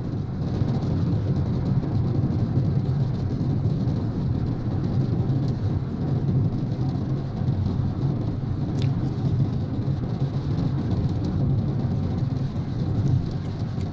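Steady low road and engine rumble inside a moving car's cabin, on a rain-wet road.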